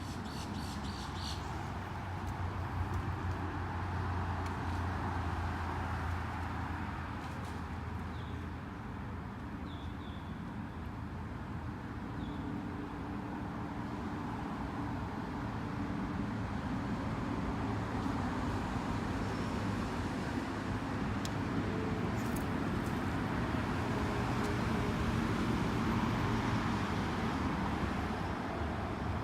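Steady low motor hum whose pitch shifts partway through, with a few short high chirps around the middle.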